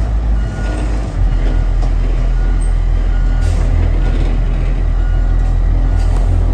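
School bus engine running with a heavy, steady low rumble. A faint short beep repeats about once a second, like a reversing alarm.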